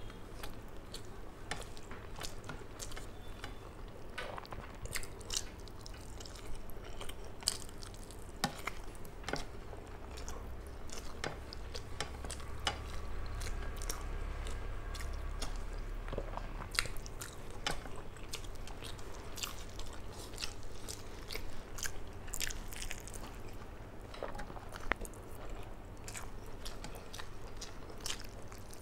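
Close-up chewing of a mouthful of rice and hilsa fish eaten by hand, with many short wet mouth clicks and smacks scattered through, alongside fingers squishing and mixing soft rice on a steel plate.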